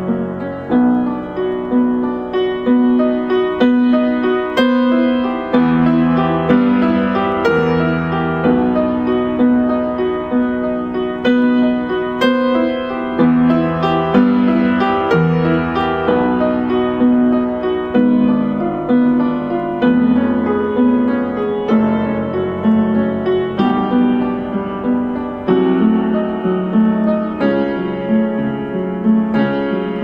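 Piano music: a steady, unbroken flow of sustained notes.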